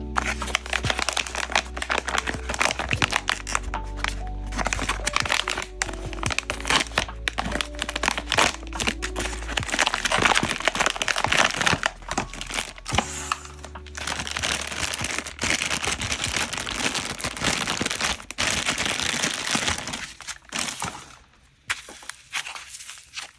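Blind-box packaging crinkling and crackling as it is handled, with many small irregular crackles, over background music. The crackling dies down briefly near the end.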